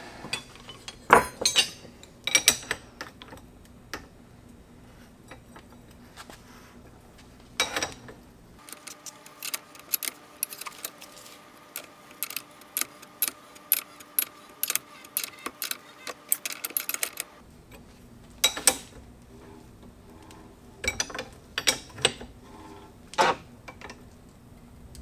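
Metal clicks and clinks of tools and motorcycle fork parts being handled, with a stretch of rapid clicking in the middle.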